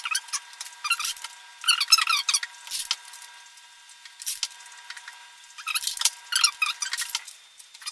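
Transparent packing tape being pulled off the roll and laid over a cracked tablet glass, in about six short, crackling, squeaky pulls.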